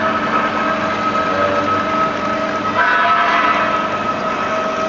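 Durma DCB-S 560 band saw running and cutting through metal stock, a steady whine over a hiss of the blade biting, with a brief extra higher whine about three seconds in.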